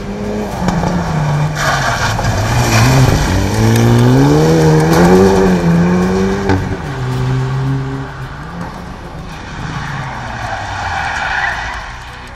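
Hyundai i30N's turbocharged 2.0-litre four-cylinder engine driven hard on a rallycross course. The engine pitch falls, climbs sharply about three seconds in, then drops and levels off. Tyres hiss and spray on loose gravel, loudest in the middle and again near the end.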